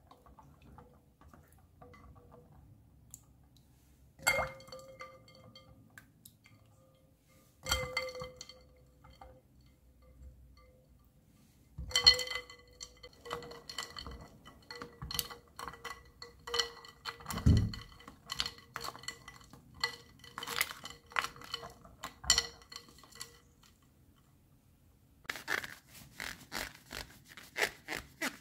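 Ice cubes, apples and a wooden spoon clinking against a glass bowl of ice water, each knock leaving a short ring: a few single knocks, then a quick run of clinks with one dull thump among them. Near the end, a paper towel rustles as an apple is rubbed dry.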